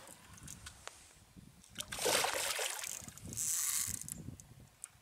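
Water splashing at the lake surface: a loud splash about two seconds in, then a second, lighter and hissier splash about a second later.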